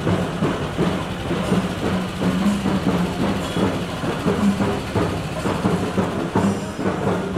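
Kerala procession percussion ensemble (singari melam) playing fast, dense chenda drumming, with a steady low held note underneath.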